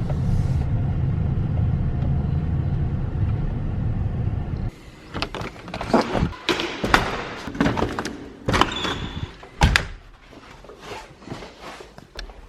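An engine running steadily with a low hum, cutting off abruptly; then a series of irregular knocks, thuds and clunks, as of doors and objects being handled.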